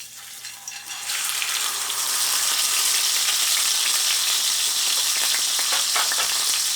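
A whole tilapia sizzling and crackling in hot cooking oil in a frying pan. The sizzle starts as the fish goes in, grows loud about a second in, and then stays steady.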